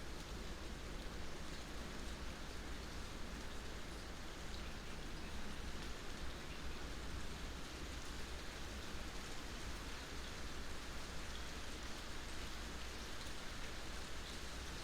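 Steady rain falling on a surface, with scattered small drips audible through the even hiss of the rain.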